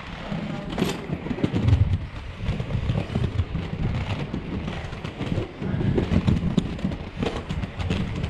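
Large urethane wheels of Powerslide three-wheeled inline skates rolling over rough pavement: an uneven low rumble broken by scattered sharp clicks as the wheels cross cracks and joints.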